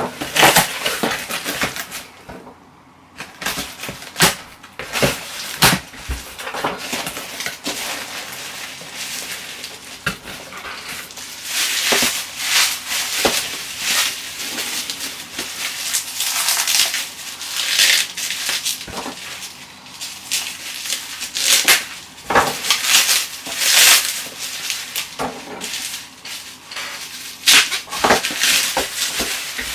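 Packaging being handled: a cardboard box rummaged through its packing peanuts, then bubble wrap crinkled and pulled off a boxed vinyl figure, with sharp crackles and rustles throughout.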